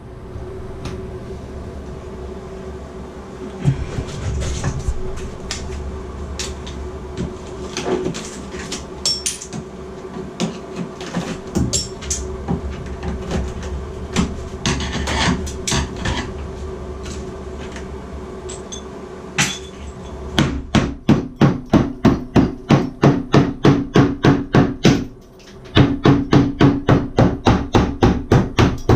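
A power tool cutting into a ceramic tile wall, running with a steady hum under scattered sharp knocks and clatter. About two-thirds of the way in it changes to a regular pounding, about two strikes a second, which pauses briefly and then goes on.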